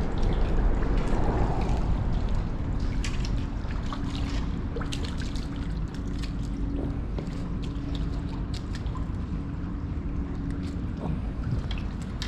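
Wind rumbling on the microphone, with water trickling and lapping and scattered small splashes and ticks. A steady low hum comes and goes through the middle.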